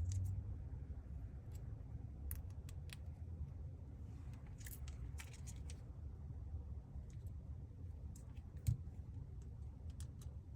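Scattered small clicks and taps from a smartphone being handled during reassembly, some in quick clusters, with one duller knock near the end, over a steady low hum.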